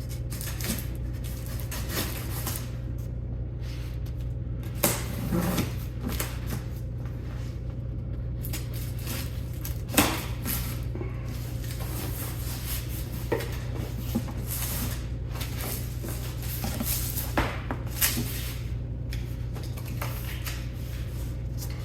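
Unpacking a cardboard shipping box: rustling of cardboard and packing with scattered clicks and knocks as parts are handled and set down, over a steady low hum.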